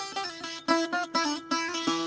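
Background music: a plucked string instrument playing a quick run of notes over a steady drone.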